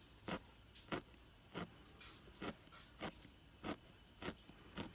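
Felting needle stabbing repeatedly through wool fibres into a felt backing, a short sharp stab about every two-thirds of a second, eight in all at an even pace.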